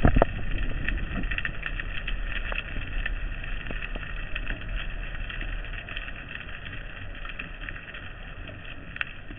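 Underwater sound picked up through a camera housing on a speargun while swimming: a steady low rumble of water, sprinkled with many short sharp clicks and crackles. A dull thump right at the start is the loudest sound.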